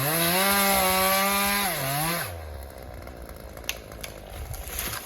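Chainsaw revved up to full throttle, running high for about two seconds, then dropping back to idle. A couple of sharp knocks follow later.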